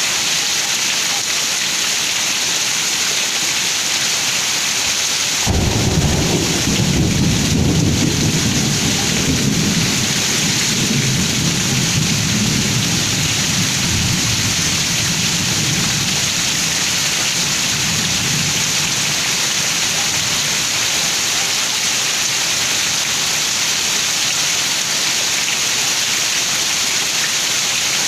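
Heavy rain pouring steadily. About five seconds in, a crack of thunder breaks into a deep rumble that fades slowly over the next ten seconds or so.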